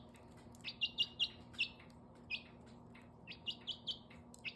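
Young chicken peeping: about ten short, high chirps that slide down in pitch, coming in small clusters, with faint light clicks between them.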